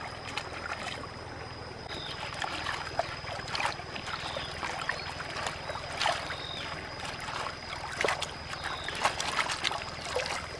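Water splashing as hands scrub cucumbers and then swish red chili peppers around in a woven bamboo basket dipped in a shallow stream, over the steady trickle of the stream. The splashes come irregularly, every second or two.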